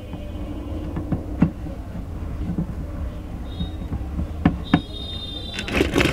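Sharp clicks and knocks of TV parts being handled and fitted during reassembly, scattered through a steady low hum. The knocks bunch together near the end, and a brief high-pitched tone sounds about five seconds in.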